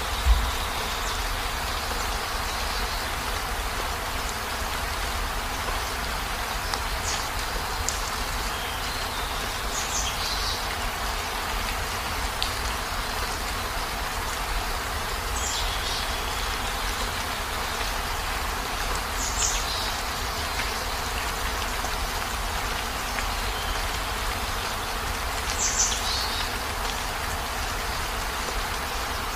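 Steady rain, an even hiss with a low rumble beneath it, with a few sharper drop or drip sounds every few seconds. A single low thump sounds just after the start.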